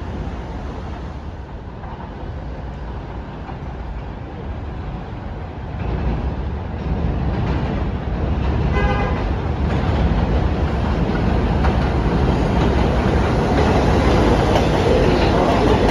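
New York City subway train of R62A cars on the 1 line approaching along elevated track, its rumble growing louder through the second half. A short horn toot sounds about nine seconds in.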